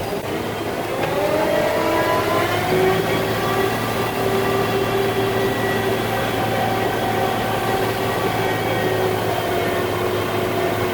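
Concrete mixer truck's diesel engine revving up over the first two or three seconds, then running steadily at a held speed.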